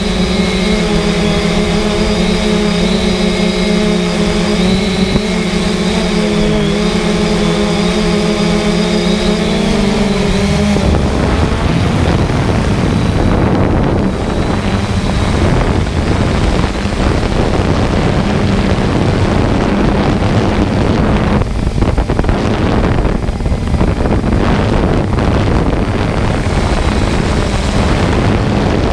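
Quadcopter drone's motors and propellers running with a steady hum and whine. About ten seconds in the pitch dips and the whine fades under rushing wind noise on the microphone, with the motor hum still faint beneath.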